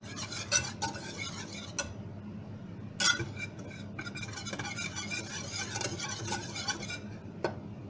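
A spoon stirring and scraping in a cooking pot, with a run of small ticks and a few louder knocks against the pot.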